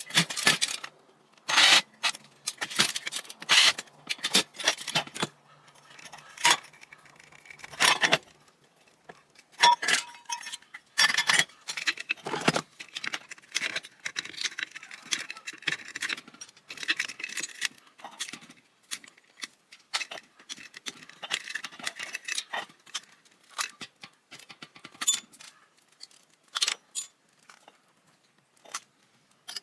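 Metal parts of a ceiling fan being handled and taken apart: irregular clinks, clatters and scrapes of metal on metal, busiest in the first half.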